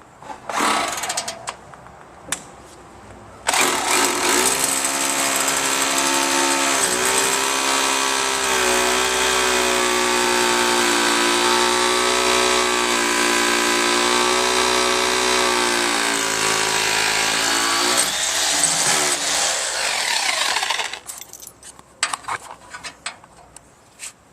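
A power drill bores an anchor hole into concrete to fasten the bulkhead frame down. It runs under load for about seventeen seconds, its pitch wavering slightly, and stops suddenly. A few knocks come before it and scattered clicks after.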